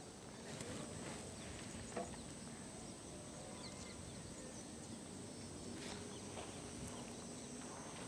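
Faint open-air ambience by fields: a steady high-pitched hum runs throughout, with a few faint short bird chirps and a soft tap about two seconds in.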